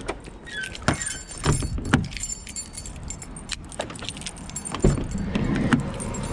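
A bunch of keys jangling, with scattered metallic clicks, over a low rumble of street traffic.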